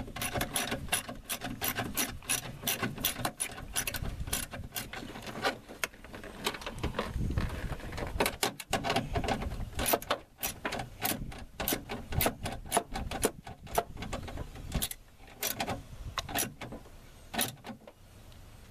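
Hand ratchet clicking in quick runs of short back-and-forth strokes while driving a self-tapping screw into sheet metal. There is a pause partway through, then the clicking resumes.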